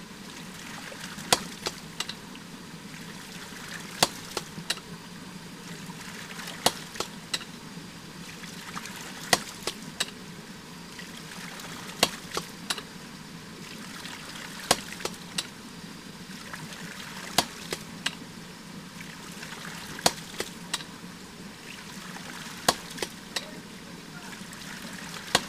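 Hydraulic ram pump cycling: water spurts from its waste valve, which shuts with a sharp clack about every 2.7 seconds, each clack followed by one or two lighter clicks. A steady rush of water runs underneath.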